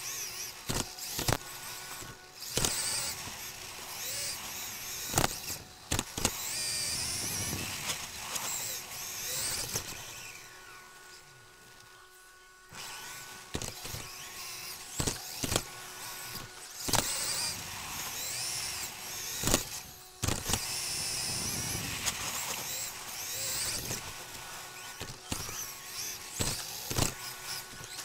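Onboard sound of an Xray XB2 2WD electric off-road buggy with a 13.5-turn stock brushless motor at speed: the motor and drivetrain whine rises and falls with the throttle, broken by many sharp knocks of the chassis hitting the track. About ten seconds in the whine drops away for roughly two seconds, then returns.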